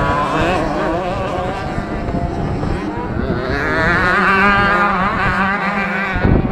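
Several 65cc two-stroke motocross bikes revving, their overlapping engine notes rising and falling as the riders work through the track.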